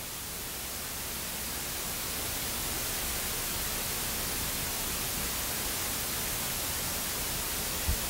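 Steady hiss of recording noise with no bird calls, growing a little louder over the first few seconds. A brief low thump near the end.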